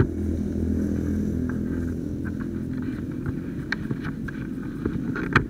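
Motorcycle engine idling steadily, with a few sharp clicks, the loudest near the end.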